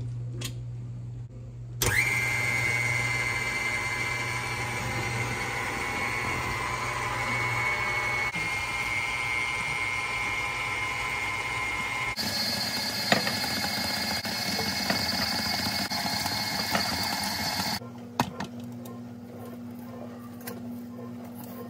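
KitchenAid Artisan stand mixer running with its flat beater in a bowl of flour and dough: it gets much louder as it is turned up about two seconds in, turns higher-pitched about twelve seconds in, and is switched off about eighteen seconds in. Faint sounds of dough being worked by hand follow.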